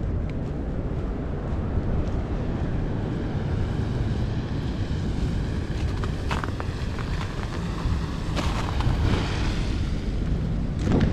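Steady low rumble of wind buffeting the microphone outdoors. A couple of brief, sharper noises stand out about six and eight and a half seconds in.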